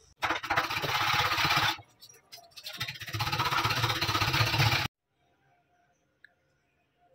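A wooden spatula scraping and scooping cooked goat liver out of a non-stick kadhai onto a plate, in two loud stretches of scraping noise about a second and a half and two seconds long, the second cutting off abruptly. After that only a faint hum and a small click are left.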